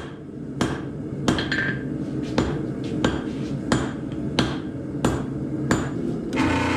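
Hand hammer forging hot high-carbon steel on an anvil, tapering the tip of a knife billet, with about ten blows at roughly two-thirds of a second apart. Near the end a loud, steady machine noise starts up.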